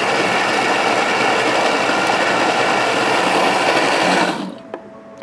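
Thermomix food processor running steadily at high speed, blending raw chicken and vegetables, then switching off about four seconds in.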